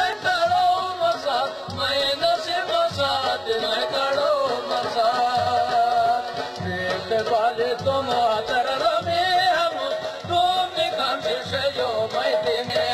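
A song with a singing voice over a regular drum beat, used as background music.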